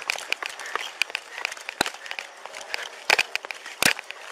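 Police body-worn camera jostling on a running officer: clothing and gear rubbing and rattling against the microphone, with running footsteps and a few sharp knocks, the loudest near the end.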